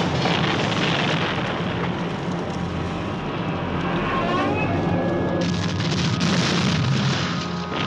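Explosions and fire rumbling without a break, with a fresh blast about five and a half seconds in.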